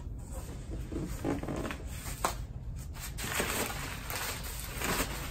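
Packing material rustling with a few light knocks as a box is unpacked by hand; the rustling gets busier from about three seconds in.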